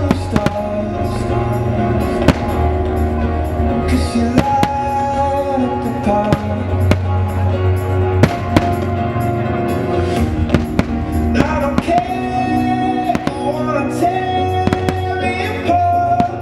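Music with long held melody notes and a pulsing bass, with sharp firework bangs and crackles going off irregularly through it.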